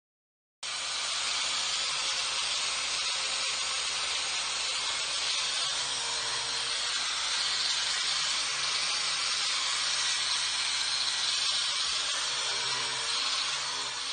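Angle grinder with a wire brush scouring rust off a cast iron cauldron: a steady, loud hissing grind that starts about half a second in.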